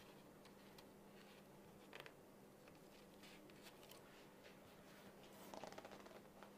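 Near silence: faint clicks and rustles of a paper slide being handled in a cardboard slide projector, over a steady low hum.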